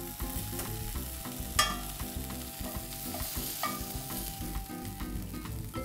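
Metal tongs scraping seared oyster mushroom pieces out of a hot cast iron skillet and into a glass bowl of barbecue sauce, with the pan sizzling and two sharp clinks, about one and a half and three and a half seconds in.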